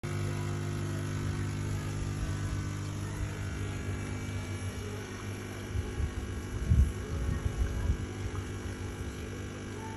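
Electric coffee grinder motor running with a steady hum that starts suddenly, with irregular low knocks around six to eight seconds in.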